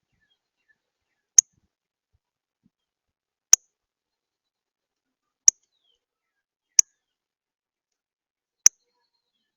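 A songbird's sharp, single chip calls, five of them at irregular intervals, high-pitched and very brief, with near silence between.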